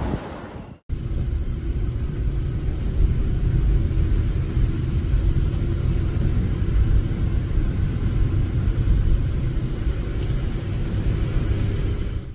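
A steady low rumble of a road vehicle running. It begins after a brief dropout about a second in.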